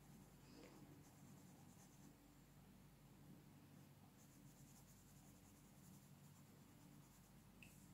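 Faint scratching of a coloured pencil shading on paper in quick back-and-forth strokes, coming in short spells with a pause in the middle.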